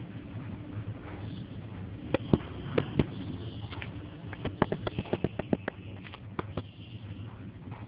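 Steady low rumble of busy street traffic heard from above, broken by a dozen or so sharp, irregular clicks between about two and six and a half seconds in.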